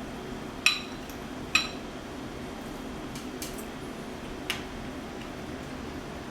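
Two sharp, ringing clinks of dishware being knocked together, then a few lighter clicks, over a steady low hum.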